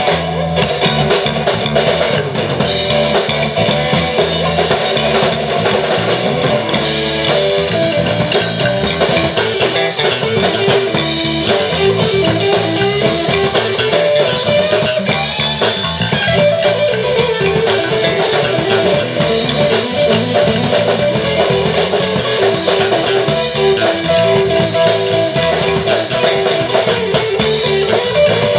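A live rock band playing: electric guitar over bass guitar and a drum kit.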